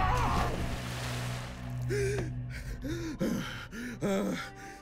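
Cartoon characters gasping and panting for breath, short breathy gasps and grunts from about two seconds in, after the tail of a loud crash fades out in the first second over a low music drone.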